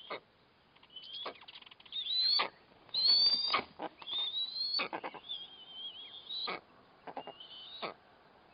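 Eastern imperial eagles calling at the nest: a series of high, rising, yelping calls, about one a second, loudest a little past the middle.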